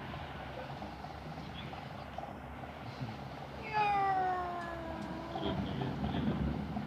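A cat gives one long, drawn-out meow that falls in pitch, starting a little before four seconds in, with another meow beginning right at the end, over a steady low hum.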